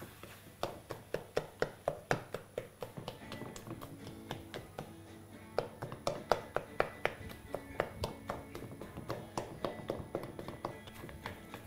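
A spatula knocking and scraping against a pan while apricots and sugar are stir-roasted. The sharp knocks come about three a second in two runs, with a short pause between them, over background music.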